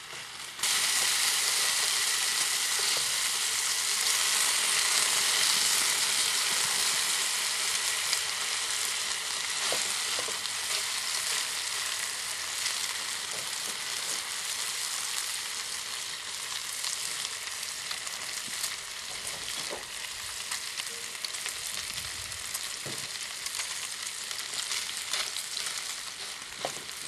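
Strips of bacon sizzling and frying in a steel skillet over the wood-burning Firebox folding stove, a dense steady hiss of spitting fat. It comes in loud about half a second in and slowly eases, with a few light clicks of tongs on the pan.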